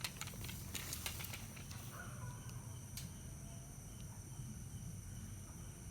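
Faint, steady high-pitched insect trilling, with a few light clicks in the first second.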